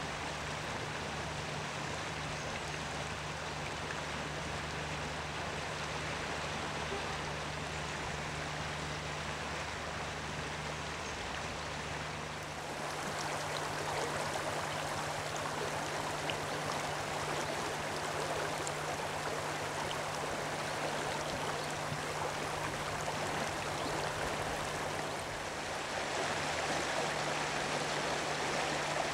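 River water rushing and splashing over stones in a shallow riffle: a steady rush that gets louder and brighter about twelve seconds in and again near the end.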